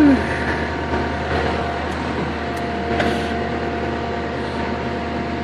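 Kubota SVL90 compact track loader's diesel engine running steadily, with a faint knock about three seconds in.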